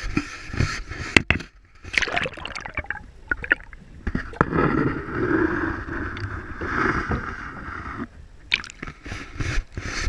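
River water splashing and sloshing around a landing net held in the current, with a few sharp knocks about a second in. From about four seconds in to about eight, the sound turns muffled and gurgling, heard from underwater as the net with the fish is held under the surface.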